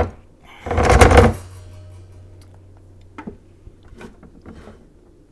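A partly disassembled Brother LB5000S sewing machine being turned over and handled: one loud clatter of its metal frame and plastic parts about a second in, a low hum that fades over the next two seconds, then a few small knocks.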